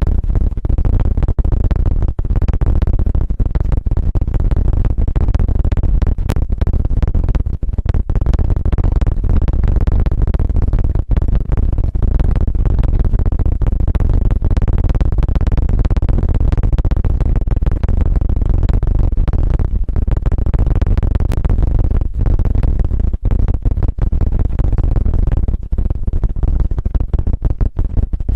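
ASMR 'helicopter' ear-stimulation sound: a loud, continuous, low rumbling flutter made right on the microphone, with rapid tiny breaks throughout.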